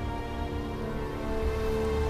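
Background music: long held notes over a low drone, with a new sustained note coming in a little past halfway.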